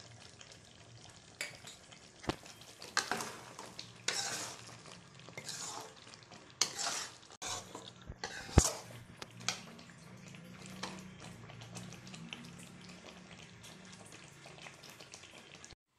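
Metal ladle stirring thick chicken gravy in a metal kadai, scraping the pan and knocking sharply against it now and then. The scrapes and knocks come mostly in the first ten seconds, over a faint low hum.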